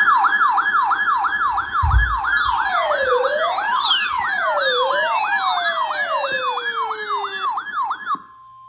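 Electronic siren yelping, about three quick up-and-down sweeps a second, with a slower wailing siren layered over it from about two seconds in. It cuts off shortly before the end into a steady single-pitched alert tone, the weather-radio warning tone that opens an emergency alert.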